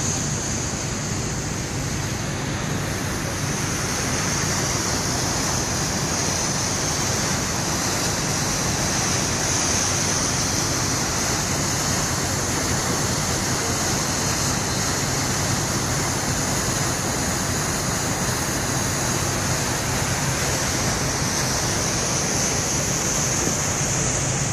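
Steady rush of water as the ferry's wake foams and churns along the hull, with a low steady hum underneath.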